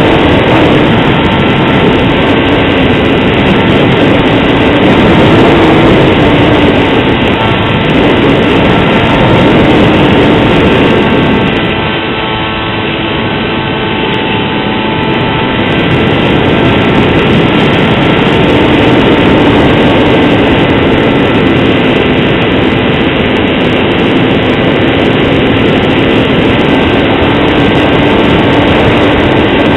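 Motor and propeller of a scratch-built Depron foam RC plane, heard through its onboard camera's microphone in flight: a loud steady drone with a whine over rushing air. It drops for a few seconds about twelve seconds in, then comes back up.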